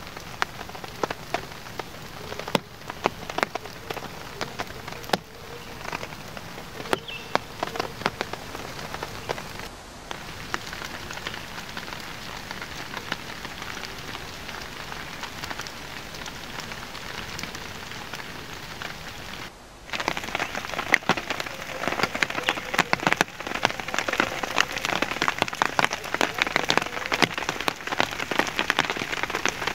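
Steady rain falling on a plastic tarp shelter, many separate drop hits on the taut sheet. The rain gets heavier and louder about two-thirds of the way through.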